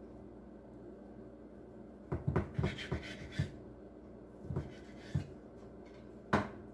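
Kitchen knife cutting through rolled cinnamon-roll dough and knocking on a wooden cutting board: a quick cluster of taps about two seconds in, then a few single knocks, the sharpest near the end.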